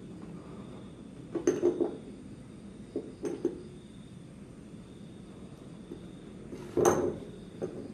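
Short clinking and knocking sounds in small clusters: one about a second and a half in, another at about three seconds, and the loudest just before the end.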